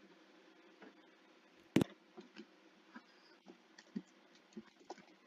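Faint low hum with one sharp click a little under two seconds in and scattered light ticks and clicks.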